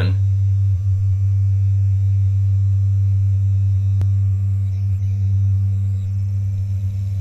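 Small brushed DC motor humming steadily at its PWM frequency while it stalls: the duty cycle is still too low to turn it, and it only gets going at around 70%. There is one faint click about four seconds in.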